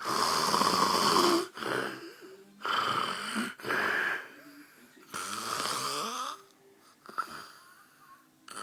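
A sleeping man snoring loudly: a run of snores, each from about half a second to a second and a half long, with quiet gaps between them.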